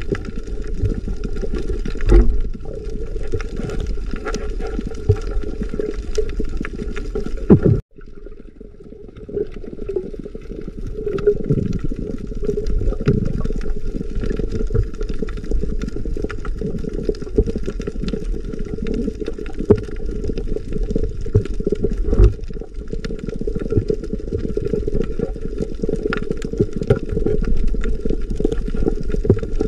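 Underwater sound heard through an action camera's waterproof housing: a steady, muffled rumble and gurgle of water with scattered clicks and a couple of louder knocks. It drops away suddenly about eight seconds in and builds back over a couple of seconds.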